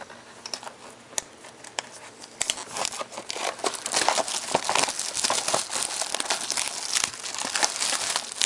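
Plastic shrink wrap crinkling and tearing as it is pulled off a sealed trading-card box, with scattered clicks at first and denser, louder crackling from about two and a half seconds in.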